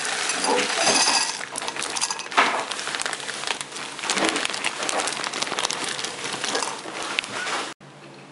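Dried red kidney beans poured from a plastic bag into a glass bowl: a dense rattling patter of beans hitting the glass and each other, with some crinkling of the bag. It cuts off suddenly near the end.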